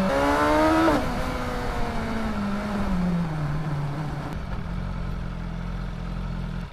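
BMW S 1000 XR inline-four engine through a LeoVince Factory S slip-on exhaust, pulling hard with the pitch climbing for about a second. The note then falls away over the next few seconds and settles to a steady lower drone before cutting off suddenly at the end.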